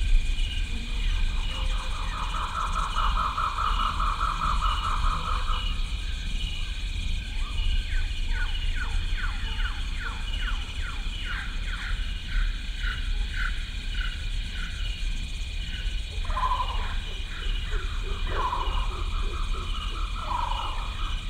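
Intro music with a steady deep bass and a regularly pulsing high tone, with a run of quick falling sweeps in the middle.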